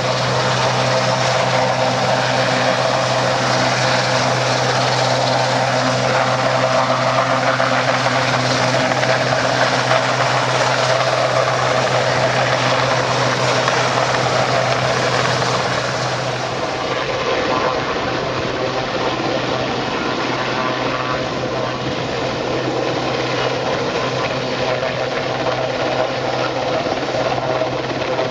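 Westland Sea King rescue helicopter hovering low, its rotor and turbine engines running with a loud, steady hum and rush. The sound drops slightly in level about two-thirds of the way through.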